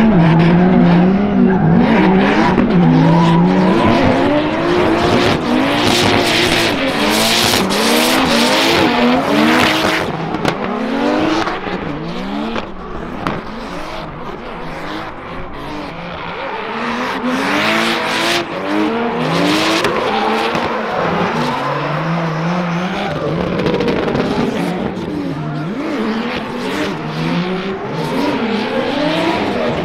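Two drift cars in a tandem run, a BMW E46 with a Ford Barra 4.0-litre inline-six and a Volvo 740, their engines revving up and falling back over and over as they are worked on and off the throttle, with tyres squealing and skidding. The sound fades somewhat around the middle, then comes back loud near the end.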